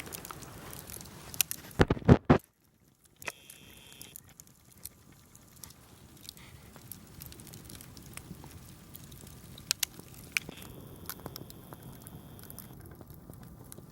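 Small campfire crackling, with a few loud sharp cracks about two seconds in, then quieter crackling with scattered pops.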